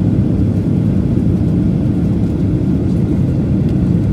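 Cabin noise of a jet airliner on descent: the engines and rushing airflow make a steady, even, low-pitched noise with no breaks.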